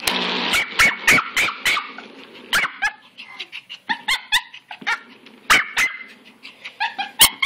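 Jack Russell–Pomeranian mix puppy barking excitedly at a spinning toy: many short, sharp yipping barks, a fast run of them in the first couple of seconds, then bunches of two or three.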